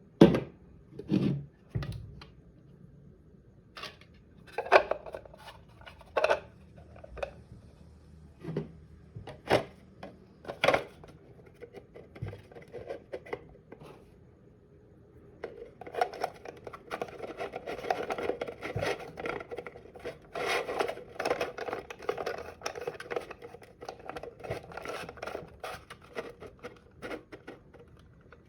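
Hand work with a tool: scattered clicks and short scrapes, then about ten seconds of continuous rubbing and rasping, like filing or sanding.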